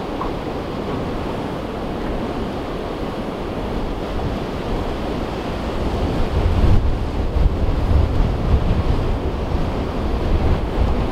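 Wind noise on the microphone over a steady wash, the low rumble turning gustier and heavier from about six seconds in.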